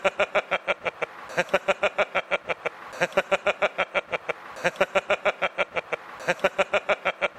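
A man laughing hard and without pause into a handheld microphone: runs of rapid "ha-ha-ha" pulses, about seven a second, each run lasting roughly a second and a half and broken by a quick breath.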